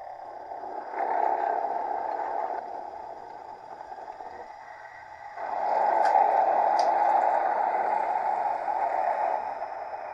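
Model locomotive sound decoder (D&H SD21A-4 running an E 95 electric-locomotive sound project) playing through a small 11x15 mm speaker in a 3D-printed sound box. A hissing noise swells about a second in, eases, then swells louder again about five seconds in, with a couple of faint clicks.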